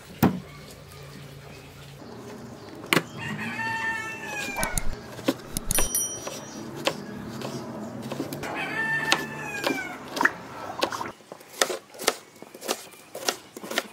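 A rooster crows twice, a few seconds in and again near the middle, each a long call falling in pitch. Near the end a kitchen knife chops steadily on a wooden cutting board, about two to three strokes a second.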